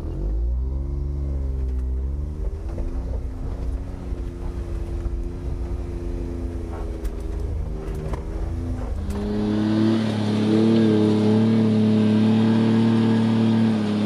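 Engine of a 1990 Suzuki Carry 4x4 kei truck, a small three-cylinder, running as the truck drives slowly along a dirt track, its pitch rising and falling a little with the throttle. About nine seconds in it gets louder and higher-pitched as the truck accelerates.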